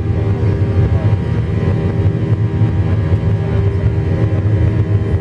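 Steady drone of a passenger plane's engines heard from inside the cabin: a low hum with several steady tones above it.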